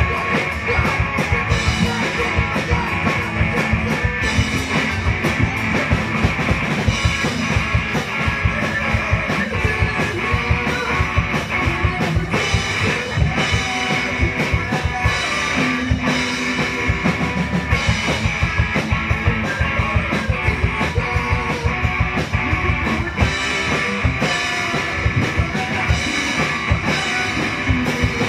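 Live rock band playing, drum kit and electric guitars, with drum hits going on steadily.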